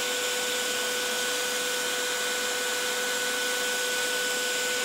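Handheld electric air blower running steadily: a constant rush of air with a steady motor whine.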